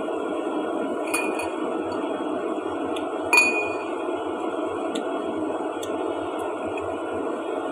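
Chopsticks and a metal spoon clinking against a ceramic bowl: about six light taps, the loudest about three and a half seconds in with a short ring, over steady background noise.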